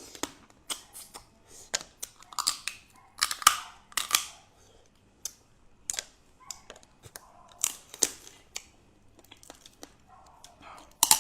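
Close-miked eating of a brown crab claw: irregular sharp cracks and crunches of the shell being bitten open and chewed, with quieter wet clicks between them.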